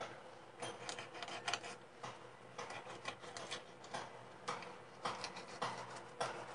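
Sharp knife cutting a pejerrey fillet off the backbone, the blade scraping and ticking along the spine and against a plastic cutting board in faint, short, irregular strokes, a few a second.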